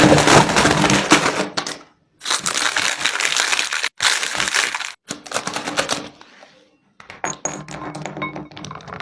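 Cake-making sounds in short clips that start and stop abruptly: dense crackling, clattering and clicking, with a steady low hum under some of the clips.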